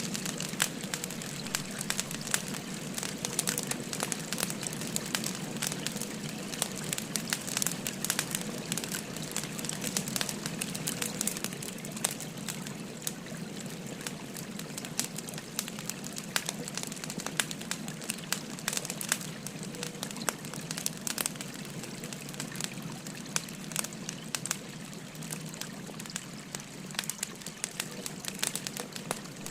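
Wood fire crackling, with many small sharp pops and snaps, over the steady rush of a babbling river stream.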